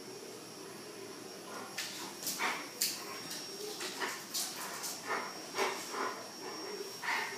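Two dogs play-fighting, giving a string of short, sharp snarls and yelps that starts about a second and a half in and runs in quick irregular bursts.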